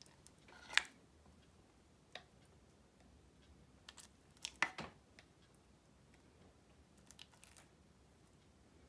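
A spatula scraping and tapping against the side of a container while scooping sticky sourdough starter: a few short scrapes and clicks, the loudest about a second in and about halfway through, with smaller ones later.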